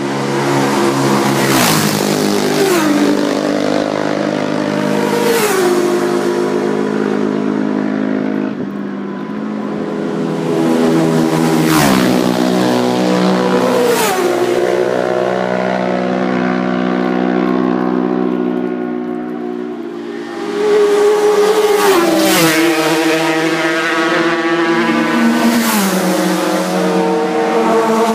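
Racing motorcycles passing one after another at full throttle, loud, each engine note dropping sharply in pitch as the bike goes by close at hand. There are several passes, in small groups, with the engines fading between them.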